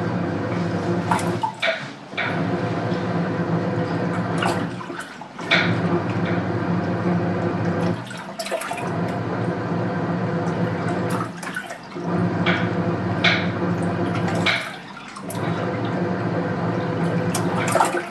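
Washing machine in its wash cycle: the motor hums and the water sloshes in spells of about three seconds, stopping briefly between them as the drum reverses. Sharp clicks sound around each pause.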